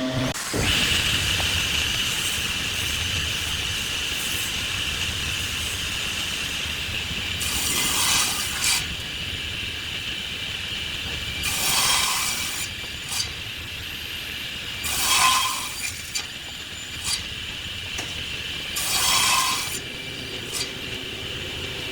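Wood lathe running with a steady whine, and four brief cutting passes of a turning tool into the spinning wood.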